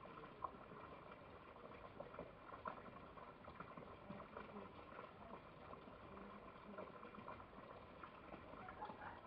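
Near silence: a faint steady hiss with scattered small clicks, one sharper click about half a second in.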